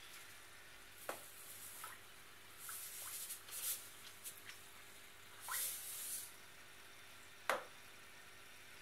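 An aquarium hood being lifted and fish food shaken into the tank: a few light clicks and knocks and two brief hissy rattling bursts as the food comes out. A sharp click near the end is the loudest sound. Under it all runs the steady faint hiss of the tank's air bubbler.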